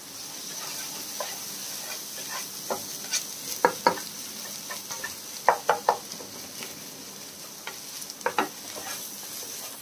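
Egg and chopped vegetables sizzling in a frying pan while a wooden spatula stirs and scrapes them, with a few short clusters of sharp clicks where the spatula knocks against the pan.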